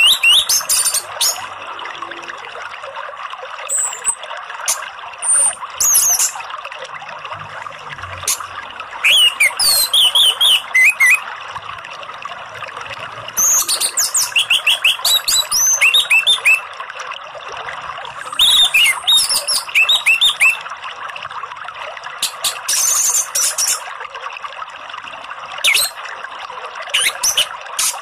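Orange-headed thrush singing in short bursts every few seconds: quick, high warbled phrases and runs of rapid falling notes, over a steady rush of running water.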